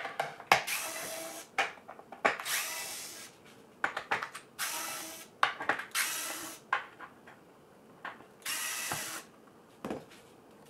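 A screwdriver backing the screws out of a Boosted Board V1's battery enclosure: several short bursts of under a second each, with sharp clicks and taps between them.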